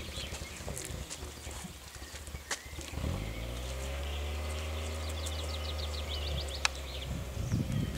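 A songbird singing a rapid trill, twice, over a low droning hum that sets in about three seconds in and fades out near the end, with a couple of sharp clicks.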